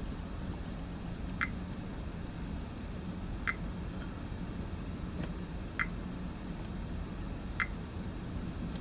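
Five short ticks, about one every one and a half to two seconds, from multimeter test probes being touched to the pins of the supply's diode bridge during a diode check, over a faint low steady hum.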